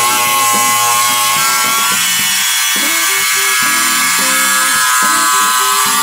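Background music over the high whine of a power tool cutting an opening through a wall panel, sped up to three times speed.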